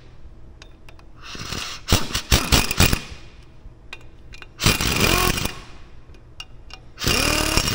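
Cordless power driver with a Torx bit running in and snugging the bolts that hold a brake rotor to a wheel hub, in three short bursts. The second and third bursts start with the motor rising in pitch.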